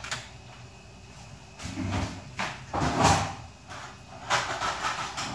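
A kitchen knife and a cucumber are handled over a metal tray. There is a sharp knock at the start, then a run of short scraping and rubbing sounds in two groups.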